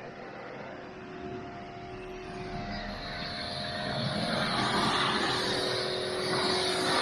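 A vehicle's motor running with a steady hum, growing steadily louder.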